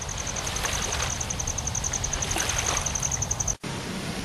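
A steady rushing noise with a rapid, high-pitched pulsing trill of about ten pulses a second. Both cut off suddenly about three and a half seconds in, leaving quiet room tone.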